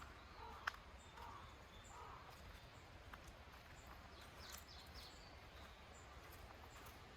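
Near silence: faint outdoor ambience with a low rumble, a single sharp click less than a second in, and a few faint high bird chirps about four and a half seconds in.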